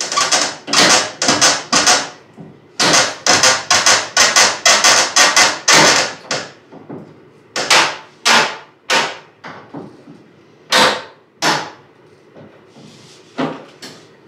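Hammer blows on a wooden wall panel: a quick run of sharp knocks, about three a second, for the first six seconds, then single blows spaced a second or two apart.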